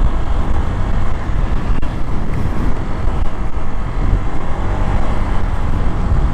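Steady wind rush and road noise heard from a Honda Click scooter riding at highway speed, a dense low rumble with no clear engine note standing out.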